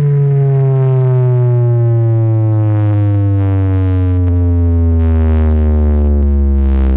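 A single loud synthesized bass tone with its overtones, held and sliding slowly and steadily down in pitch, played through a large subwoofer sound system as a bass sweep in electronic dance music.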